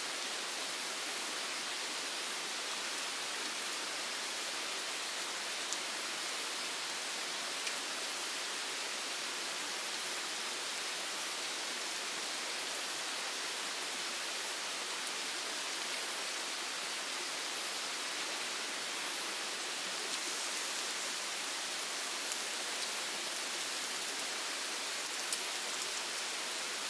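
Night insect chorus: a steady, dense hiss with a high, short chirp repeating about once a second.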